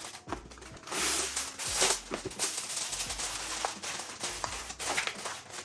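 Aluminum foil crinkling and rustling as it is pressed over a baking dish, in short bursts with the loudest about a second in.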